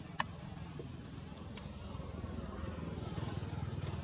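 Steady low background rumble, with a faint high chirp about every second and a half and one sharp click near the start.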